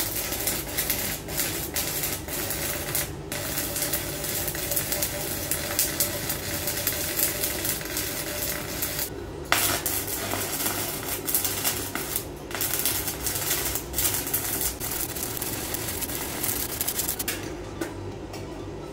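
Stick (shielded metal arc) welding with a 3.2 mm covered electrode at about 120 A, straight polarity, on an EENOUR MIG120L 100 V welder: the arc crackles densely, breaks off for an instant a few times, and stops near the end.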